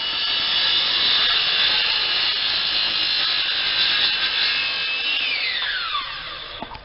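Circular saw running at full speed, a steady high whine. About five seconds in, its pitch slides steadily down as the blade spins down.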